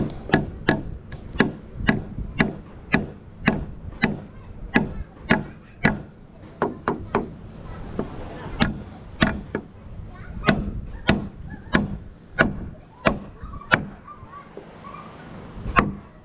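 Claw hammer driving nails into a wooden roof batten: a run of sharp strikes, two or three a second, with a pause of about two seconds near the end before the blows start again.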